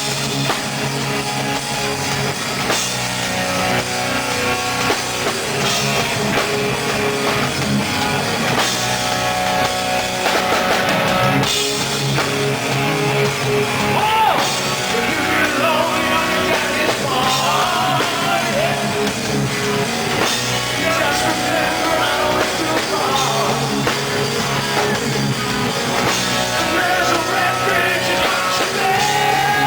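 Rock band playing with electric guitar, bass and drum kit, with sliding guitar lines partway through.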